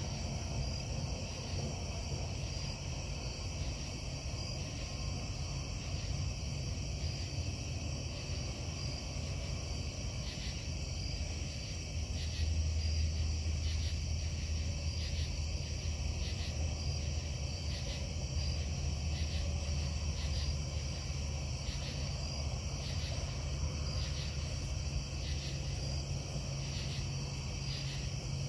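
Low, steady industrial drone from a distant metal-casting plant, swelling louder about twelve seconds in and easing back down a few seconds before the end, with crickets chirping over it.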